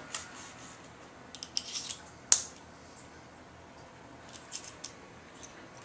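Small clicks and ticks of a screwdriver being handled as a smaller Torx bit is fitted, with one sharp click a little past two seconds in.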